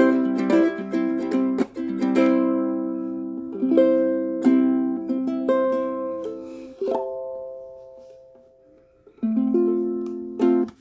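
Ukulele in low-G tuning with fluorocarbon strings, spruce top and maple body, being played: plucked chords and single notes, each ringing and fading. A last chord comes about nine seconds in and is stopped short near the end.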